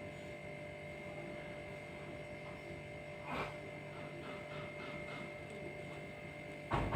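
Steady low electrical mains hum, with a faint short sound about three seconds in and a louder brief burst right at the end.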